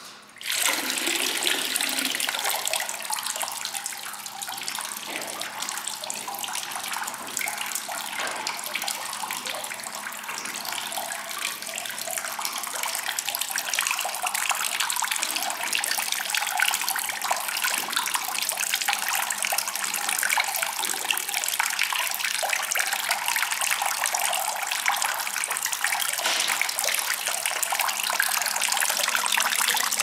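Water running from the metal spouts of a stone lobby fountain and splashing into the shallow water of its basin, a steady splashing trickle. It starts suddenly about half a second in and grows a little louder over the second half.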